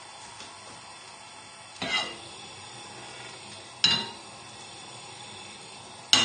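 Butter sizzling faintly in a hot frying pan, with two sharp metallic clanks of kitchenware about two seconds apart and a clatter of pans and utensils starting at the very end.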